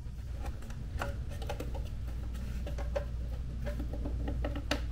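Light clicks and taps of the plastic air-oil separator cover being handled and lined up on the engine by hand, the clicks coming more often near the end, over a steady low hum.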